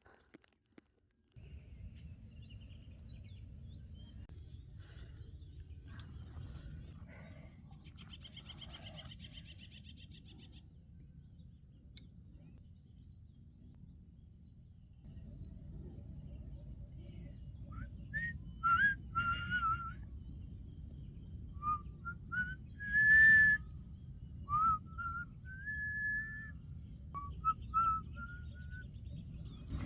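Insects droning in a steady high-pitched chorus over a low rumbling noise. In the second half a bird whistles a series of short notes that slide up and down.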